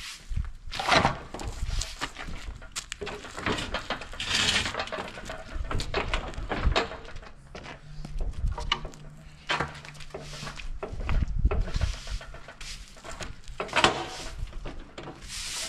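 Irregular knocking and scraping of tools as a hole is cleaned out, with short bursts of hissing noise.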